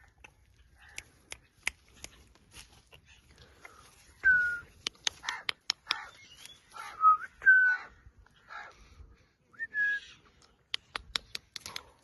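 Ringneck parrot giving four short whistled notes and many sharp clicks, the clicks bunched in the middle and near the end.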